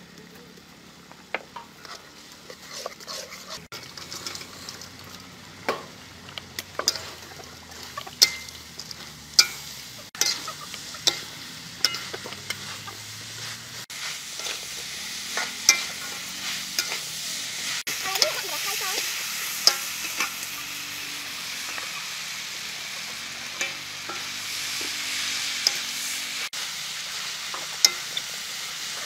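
Steel spatula scraping and clinking against a metal wok as squid rings in chili paste are stir-fried, with frying sizzle that grows louder about halfway through.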